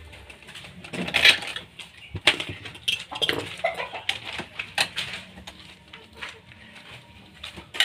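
Irregular clicks, taps and scrapes of hands and a screwdriver working on the plastic carriage and parts of an opened Epson L360 inkjet printer.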